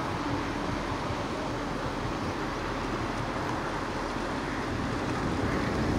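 1945 GMC DUKW amphibious truck's straight-six engine running steadily as it cruises afloat, a continuous drone mixed with the wash of its wake.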